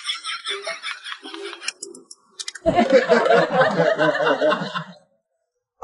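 People laughing in two stretches, broken by a few sharp clicks and a short gap; the second burst starts with a thump about two and a half seconds in and is louder, then cuts off suddenly about a second before the end.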